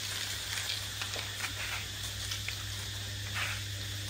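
Food frying, a faint sizzle with scattered crackles over a steady low hum.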